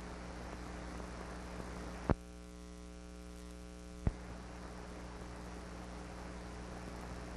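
Steady mains hum and hiss from an old film soundtrack with no sound recorded. Two sharp clicks come about two seconds apart, about two and four seconds in; between them the hiss drops away and a buzzy hum is left.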